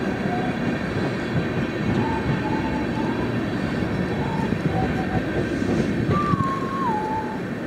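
Freight train of tank cars rolling past close by: a steady rumble of steel wheels on the rails, with thin, wavering wheel squeals that come and go, the strongest about six seconds in.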